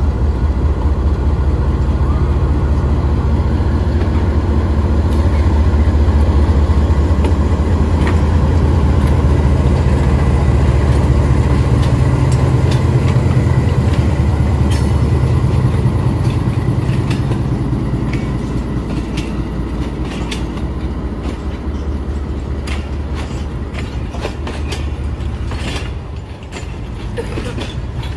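GE U20-class diesel-electric locomotive pulling a passenger train away under power, its engine's low throb loudest as it passes close, then fading. Over the second half the coaches roll past with the clickety-clack of wheels over rail joints.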